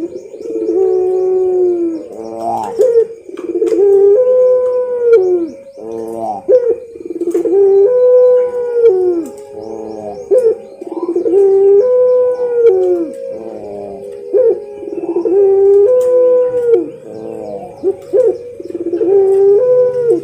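Puter pelung (domestic Barbary dove) cooing: a loud coo phrase, a quick stuttering run then a long held note that drops at the end, repeated about every four seconds. Small birds twitter faintly behind it.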